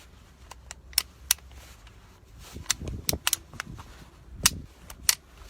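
Sharp metallic clicks and snaps of an M9 Beretta 9mm pistol being handled just after reassembly, about seven of them at irregular spacing, the loudest about a second in and again near the end.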